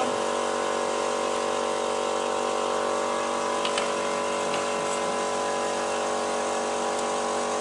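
A steady machine hum made of several held tones, with a couple of faint clicks about halfway through.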